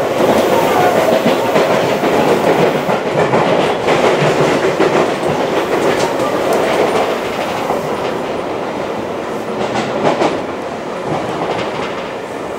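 Interior running sound of a Seibu 6000 series electric train with a Mitsubishi SiC-VVVF inverter, travelling at speed: a steady rumble of wheels on rail. A few sharp clicks from the wheels crossing rail joints come in the second half.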